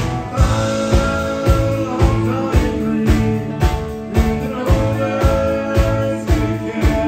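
Live band playing: acoustic and electric guitars over a drum kit, with a steady kick-drum beat about twice a second and held notes ringing over it.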